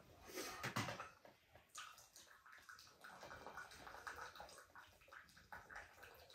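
Water running from a samovar tap into a tea glass, a faint fine hiss in the second half, after a few sharp clinks of glassware in the first second.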